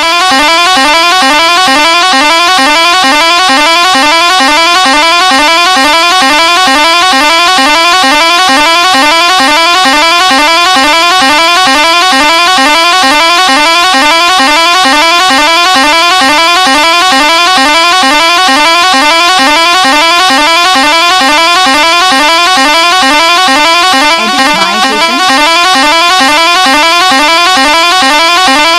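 Bus horn sounding without a break, very loud, repeating a fast rising warble over and over.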